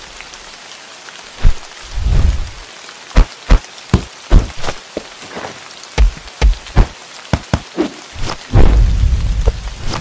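Rain falling steadily, with about a dozen sharp knocks scattered through the middle and a heavy low rumble building near the end.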